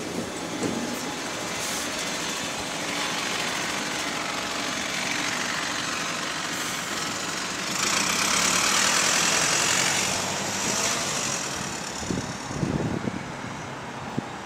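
Diesel engine of a Go-Ahead London single-deck bus (fleet number WS113) running at a stop and then pulling away, with the clattering knock the uploader calls the 'clickity clack' of the engine's rods, a sign of worn connecting-rod bearings. A loud hiss comes about eight seconds in and lasts about two seconds.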